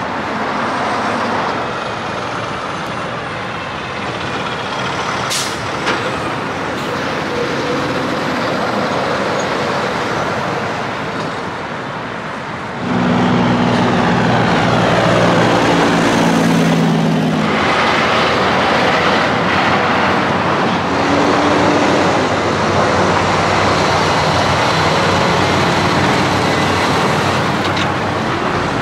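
Trucks driving past on a road. About thirteen seconds in the sound becomes louder and a semi-truck's diesel engine hauling an oversize load stands out, its pitch sliding as it goes by.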